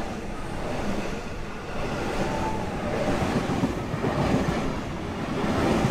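Train running along the track: a steady rumble of wheels on rails.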